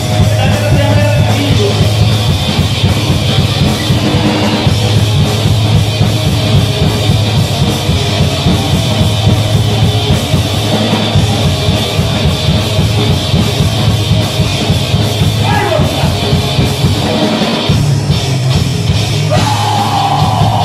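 A live gore metal band playing loud: electric guitar and bass over a drum kit, dense and continuous.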